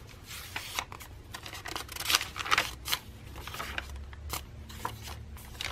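Tea-dyed paper pages of a handmade journal being turned and handled: several short paper rustles and swishes.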